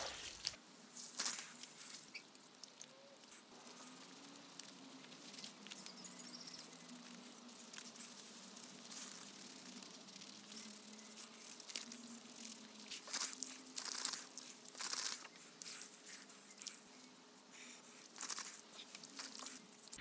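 Water spray from a garden hose on skin stops about half a second in. After it, hands scrub soap lather over wet skin and beard, making faint, irregular rubbing and rustling with a few louder scrapes.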